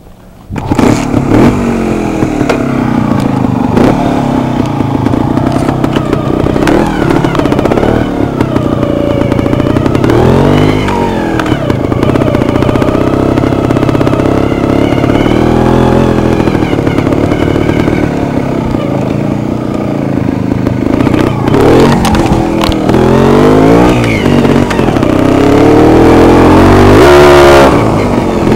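Beta trials motorcycle engine heard from on board while riding over rough ground, the revs rising and falling over and over as the throttle is blipped and eased. It is loudest near the end.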